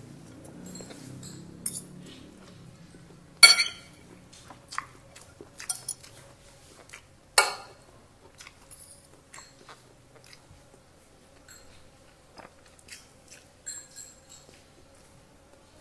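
Chewing and mouth sounds of someone eating fried rice, with a spoon and fork clinking and scraping on a plate. Two sharp clinks, about three and a half and seven and a half seconds in, are the loudest.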